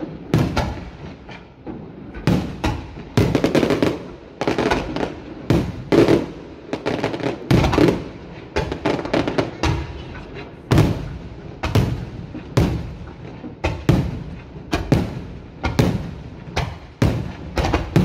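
Aerial firework shells bursting overhead in quick succession: a rapid string of loud bangs, about two a second.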